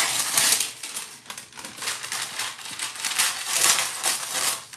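Scissors cutting parchment paper: a run of crisp snips with the stiff paper crinkling and rustling, loudest right at the start and again shortly before the end.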